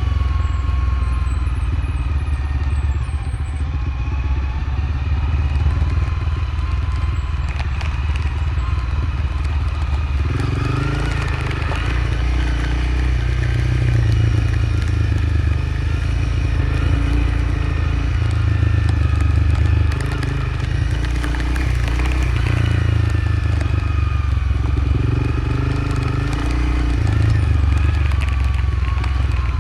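Motorcycle engine running as the bike is ridden down a dirt road, its pitch rising and falling with the throttle and working harder from about ten seconds in, with a few knocks and rattles from the rough track.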